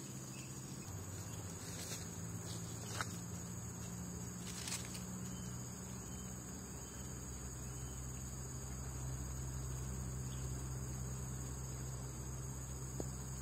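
Steady high-pitched drone of insects, over a low steady hum, with a few faint taps now and then.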